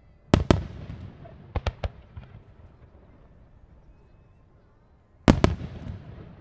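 Aerial firework shells bursting: two loud booms in quick succession about a third of a second in, trailing off in a long rumbling echo, then three smaller sharp cracks, and another pair of booms with the same rumble about five seconds in.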